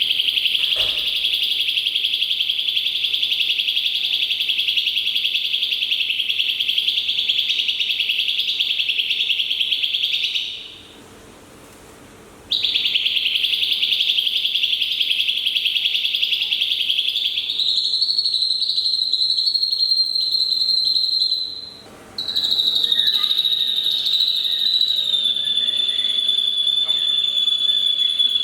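Young drongo calling in long unbroken bouts: a dense, fast buzzy chatter that stops briefly about ten seconds in and starts again. Later it changes to a thinner, high drawn-out whistle, with a short break partway through.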